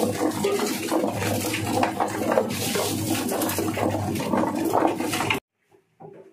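Electric drum-type poultry plucker running: a steady motor hum under the slapping and clattering of a wet chicken tumbling against the rubber plucking fingers on the spinning plate, with water splashing. The sound cuts off suddenly about five seconds in.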